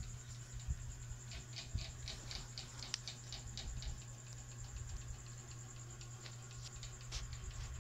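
Insect trill, steady and high-pitched, running on without a break, with a quick run of light ticks about a second in and a few scattered ticks later.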